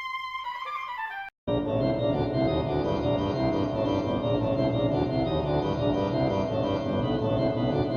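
A steady high tone that slides down in pitch and cuts off about a second and a half in, followed by an organ playing full sustained chords.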